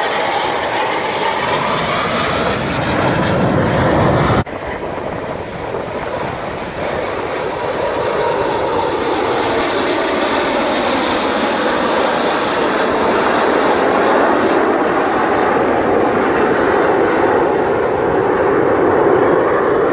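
Jet engine roar from Blue Angels F/A-18 Hornet jets flying low past in formation: a loud, steady rushing roar that drops abruptly about four seconds in and swells again toward the end.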